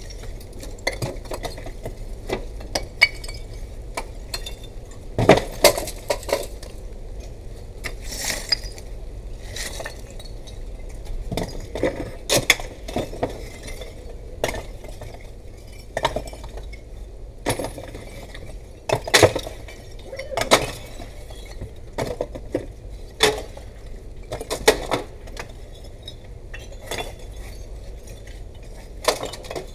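Irregular sharp clinks and knocks of hard objects striking together, over a faint steady low hum.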